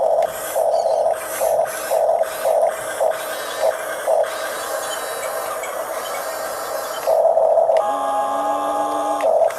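Huina 1569 RC toy bulldozer's electric drive motors and plastic gearboxes whirring in a quick series of short bursts as the tracks are pulsed, then running longer with a steady whine near the end.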